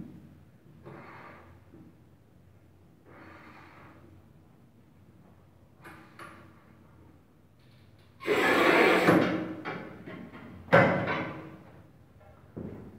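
Manual tile cutter working a ceramic floor tile: a few faint scraping strokes, then a loud scrape lasting about a second, and a sharp crack a little later as the tile is snapped along the score.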